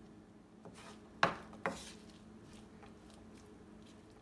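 Wooden spoon knocking twice against a frying pan while stirring sautéing vegetables, with fainter scrapes and ticks of the stirring over a faint steady hum.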